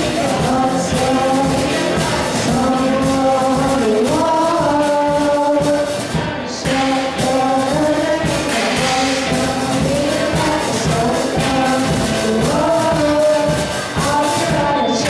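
A band playing a song with sung vocals, the melody moving in held notes over a steady accompaniment.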